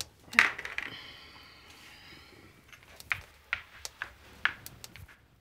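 A small plastic Monopoly token tapped square by square along a cardboard game board: a string of light, separate clicks in the second half, after a sharper knock about half a second in.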